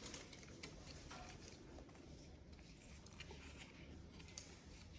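Near silence, with a few faint, scattered clicks and light handling sounds as a smartwatch and its strap are handled.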